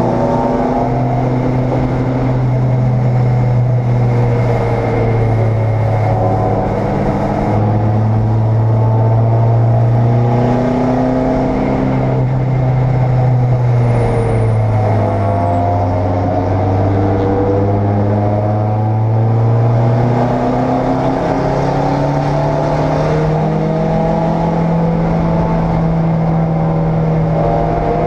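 Endurance race car's engine heard from inside the cockpit, running hard on track. Its pitch climbs and drops back several times with throttle and gear changes, then holds higher near the end.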